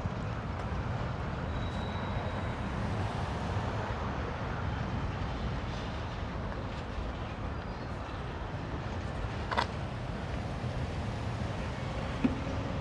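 A long freight train rolling steadily past a road crossing, a continuous low rumble with two sharp clicks: one about nine and a half seconds in, another near the end.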